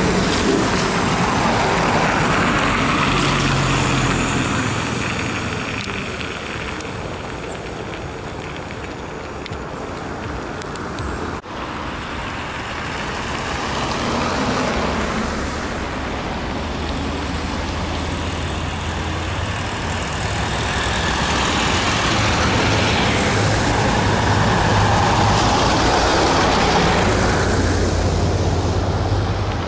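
Road traffic noise on a city street: a trolleybus passes close by, then, after an abrupt cut about a third of the way in, steady traffic with buses and cars approaching and low engine tones.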